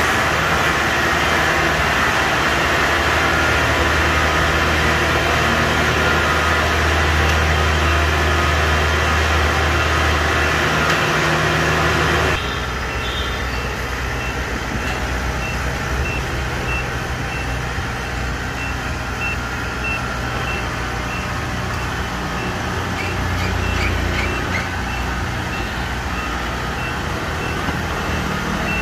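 Kubota DC-70 combine harvester's diesel engine running steadily and loudly. About twelve seconds in the sound drops abruptly to a quieter engine run as the tracked machine climbs a ramp onto a truck, with a rapid, regularly repeating high beep like a reversing alarm over it.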